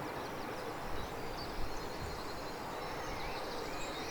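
Steady background noise with faint high chirps, and two soft knocks about a second and a second and a half in.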